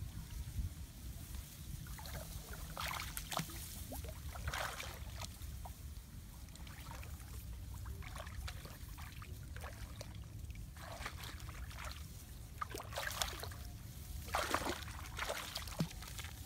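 Shallow paddy water sloshing and trickling, with irregular bouts of splashing and rustling among the rice plants as people move at the water's edge, over a steady low rumble.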